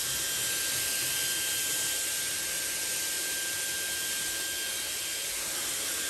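Shark mini cordless handheld vacuum running steadily with a thin high whine, sucking spilled sugar up off a carpet.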